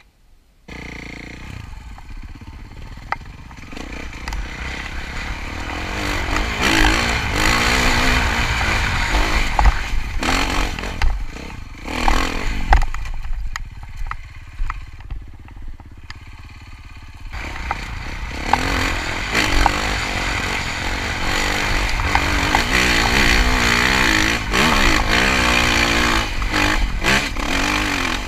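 KTM dirt bike engine revving up and down under load as it is ridden over loose rock, its pitch rising and falling with the throttle. The engine eases off for a few seconds around the middle, and sharp knocks break in here and there.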